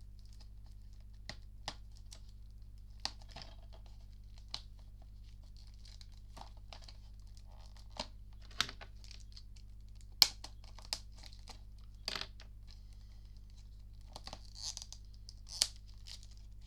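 Plastic wrapping crinkling and tearing in short, irregular bursts, with scattered sharp clicks, as a DVD case is unwrapped and handled, over a steady low hum.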